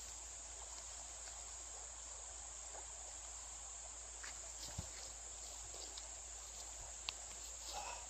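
Steady high-pitched chorus of insects over a faint rush of creek water, with a couple of faint clicks.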